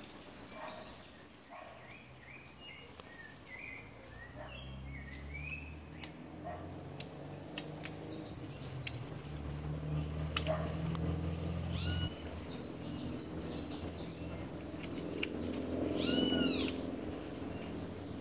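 Small birds chirping over the steady rush of a flowing creek, with a low rumble through the middle. Near the end a single drawn-out, arching animal call rises and falls.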